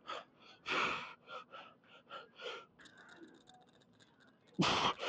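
A man breathing hard, catching his breath after a heavy lifting set: a run of short gasping breaths, then a louder, heavy exhale near the end.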